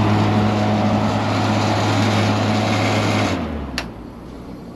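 Walk-in cooler condensing unit running with a steady low electrical hum while its compressor is not running. The unit shuts off about three seconds in, followed by a single click.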